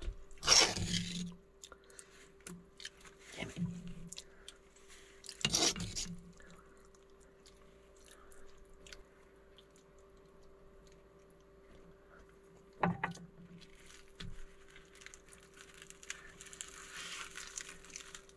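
Food being handled on a cutting board: a plastic bag crinkling and a spoon scraping filling onto a flour tortilla, with two loud rustles in the first six seconds, a few small clicks, and a softer rustle near the end as the tortilla is folded. A faint steady hum runs underneath.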